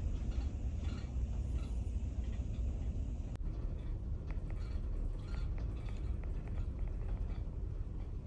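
Steady low rumble of a ferry under way, heard from inside the ship, with faint short high squeaks scattered through it.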